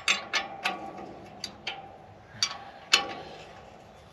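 Sharp metallic clicks and clinks, about eight at uneven intervals, the loudest near the end: a wrench working a nut onto the bolt of a field cultivator's sweep.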